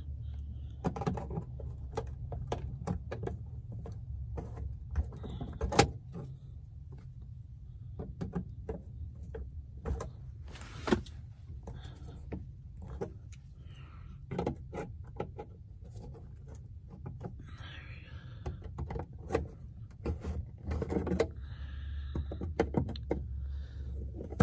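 Needle-nose pliers gripping and twisting plastic retaining clips: scattered sharp clicks and light knocks over a low steady hum.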